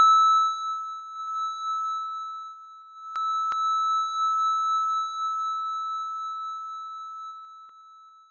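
A single steady high-pitched ringing tone, a sound-design ringing-in-the-ears effect, cuts in abruptly and slowly fades out near the end. Two faint clicks sound a little after three seconds in.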